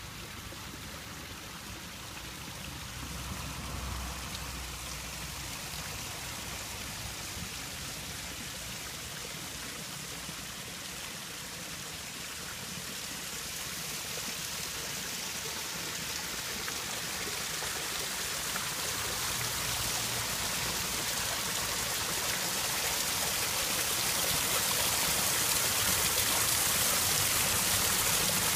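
Water pouring and splashing over the rocks of a garden pond waterfall in a steady rush, growing gradually louder throughout.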